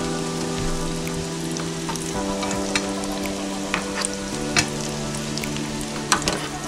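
Hot oil sizzling with a steady hiss in an electric deep fryer at 375 °F as breaded fish strips fry. Sharp clicks of metal tongs on the wire fryer basket come a few times as the strips are moved.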